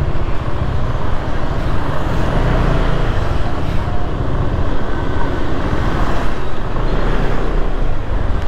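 Kymco Xciting S400i maxi-scooter riding at low speed in town traffic: a steady engine rumble mixed with road and traffic noise.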